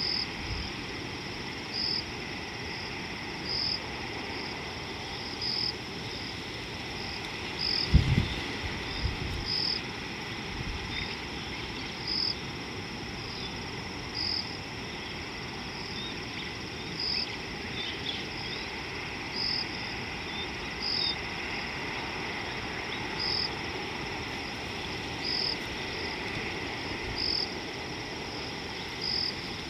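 A steady high-pitched chorus of small calling creatures, with one short, higher call repeating every couple of seconds. A few low thuds come through, the loudest about eight seconds in.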